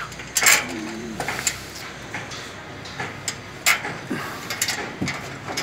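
Scattered sharp clicks and knocks as a screw is fastened by hand into the underside of a playground structure's platform, fixing a slide in place.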